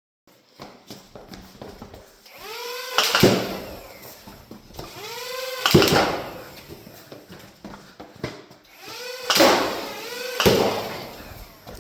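Toy foam-dart blaster being primed and fired about four times. Each shot is a loud sharp burst, led by a short rising whine.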